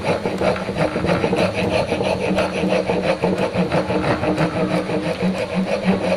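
Wood rasp filing the end of a small wooden block clamped in a vise, a scraping rasp repeated in quick, even back-and-forth strokes.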